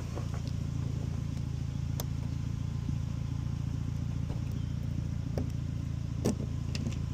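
A few sharp clicks and taps of a lock cylinder and tools being handled, over a steady low hum.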